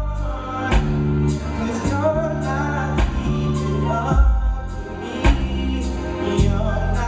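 A live R&B band playing, with bass notes, steady drum hits and a wavering sung vocal line over them.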